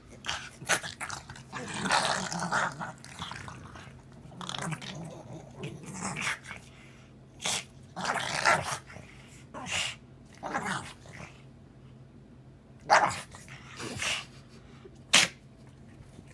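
Pug play-growling and grunting in short, irregular bursts while it wrestles on its back and mouths at a hand, with a few sharper, louder bursts near the end.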